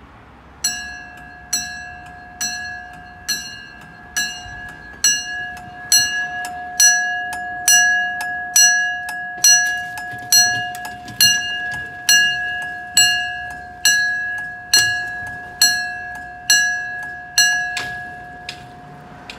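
Mechanical level crossing warning bell ringing, struck a little faster than once a second with a bright, steady ring that dies away after each stroke. It starts about a second in, rings about twenty times, and stops shortly before the end.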